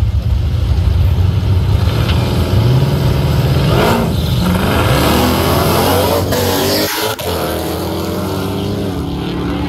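A Chevrolet Chevelle and a Jeep Grand Cherokee at a drag-strip start line, engines idling and revving, then launching about four seconds in and accelerating hard down the strip. Their engine notes rise as they pull away, then ease off a little as they get farther away.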